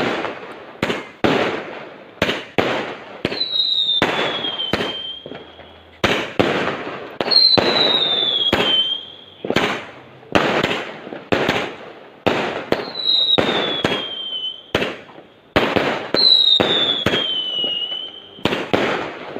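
Fireworks going off in a steady barrage: sharp bangs, one or two a second, each trailing off. A high whistle that slides down in pitch over about a second comes back every three to four seconds.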